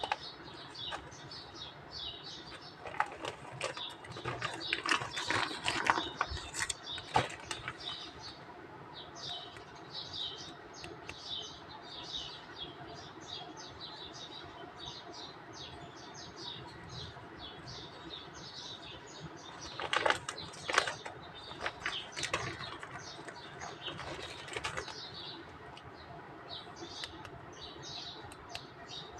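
Small birds chirping rapidly and continually in the background. Two spells of rustling with sharp clicks break in, one about four to seven seconds in and a louder one about twenty seconds in.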